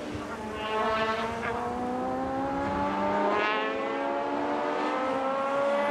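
Racing sports-prototype engine at full throttle, its pitch climbing steadily for several seconds as it accelerates, with brief swells about a second in and again about three and a half seconds in.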